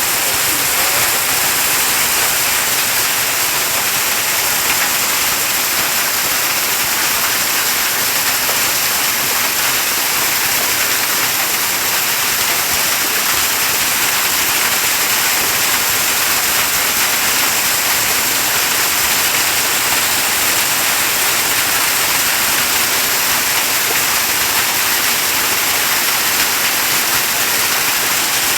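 Heavy rain mixed with hail pouring down in a steady, dense hiss.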